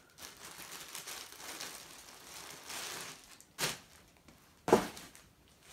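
Clear plastic polybags rustling and crinkling as packed garments are handled, with two short, sharp, louder sounds about three and a half and nearly five seconds in, the second the loudest.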